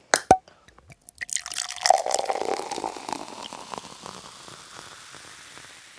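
A sharp click, then liquid being poured, the splashing hiss swelling about two seconds in and slowly fading away.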